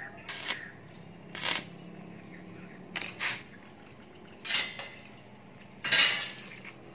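Bent steel scroll pieces clinking and knocking as they are picked up and handled: five short metallic knocks about a second or so apart, the last the loudest. A faint steady low hum runs underneath.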